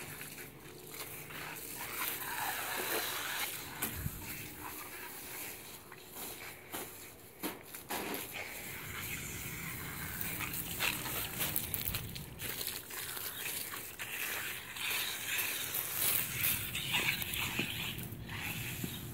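Water spraying from a garden hose, a hiss that swells and fades, with irregular crunches and clicks as a young German shepherd mouths and bites at the hose.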